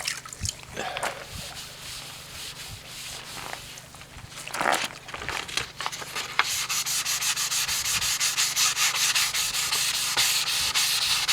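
Wet sanding with 400-grit sandpaper on a car's failed, sun-damaged clear coat: a gritty rubbing hiss of back-and-forth strokes. The strokes are lighter and sparse at first, then become a steady, brisk rhythm from a little past halfway.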